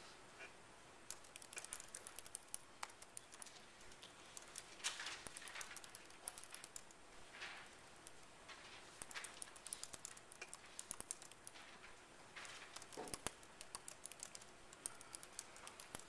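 Faint typing on a computer keyboard, coming in bursts of rapid key clicks with pauses between, plus a few short soft rustles.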